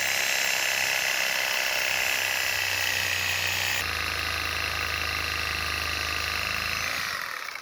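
Power saw running hard as it cuts through a thick tree root, with a high, even whine that changes pitch about four seconds in as the load shifts, then winds down near the end.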